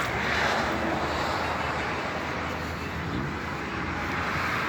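Airplane engines running: a steady rushing noise over a low rumble.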